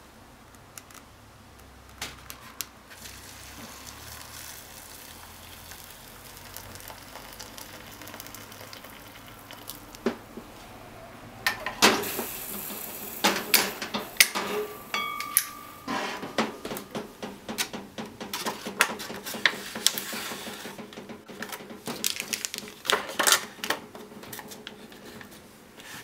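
Hot water poured into a cup of instant ramen over the dry noodles about halfway through, followed by rustling and crinkling of the foil lid and plastic soup sachets as they are handled and pressed down, with many sharp clicks. A faint steady hiss comes before the pour.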